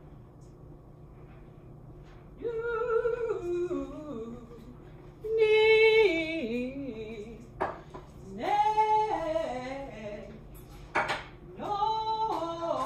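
A woman singing vocal warm-up exercises: four phrases, each a held note that steps down a scale, and each phrase starting a little lower than the last.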